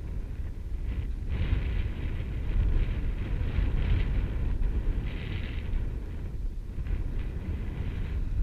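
Wind rumbling steadily on the microphone, with a rustling hiss that comes and goes from about a second in.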